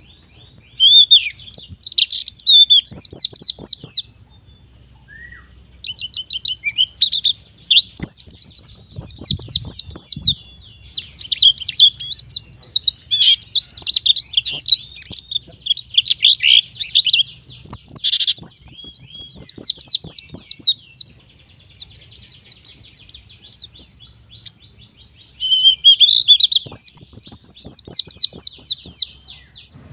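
A white-eye (pleci) singing in long, fast runs of high-pitched twittering notes. It sings three bursts, with short pauses about four seconds in and again after about twenty seconds.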